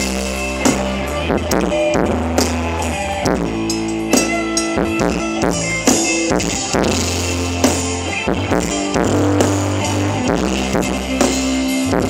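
Band music with drum kit, bass and guitar playing an instrumental passage with a steady beat and held bass notes; no singing.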